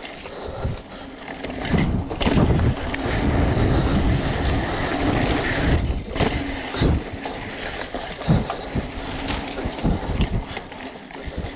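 Wind buffeting the microphone and tyres rolling over dirt singletrack as a BMC Twostroke AL hardtail mountain bike is ridden fast, with scattered knocks and rattles from the bike over bumps. The wind rush is loudest from about two to six seconds in.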